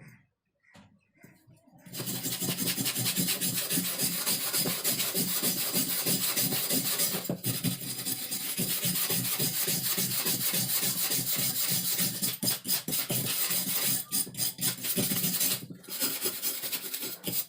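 Rapid back-and-forth hand strokes of an abrasive rubbing on an old rusty forged knife, as in scrubbing off rust and grime. The rubbing starts about two seconds in, breaks off briefly a few times, and stops just before the end.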